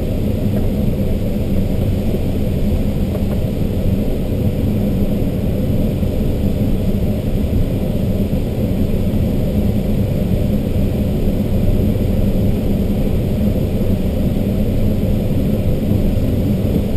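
Steady low rumble of air rushing past an ASK-21 glider's canopy in flight, with no engine.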